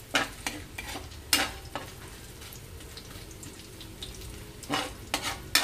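Spatula scraping and clinking against a stainless steel wok while stir-frying garlic and ginger, over a steady low sizzle. There are several strokes in the first second and a half, a quieter stretch of sizzle only, then a few more strokes near the end.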